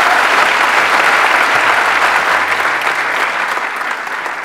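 Audience applauding: many people clapping at once in a dense, even patter that eases off slightly near the end.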